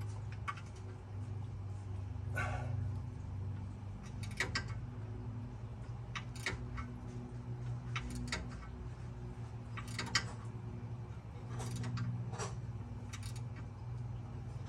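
Short metallic clicks and clanks of hand tools at irregular intervals, about a dozen in all, over a steady low hum.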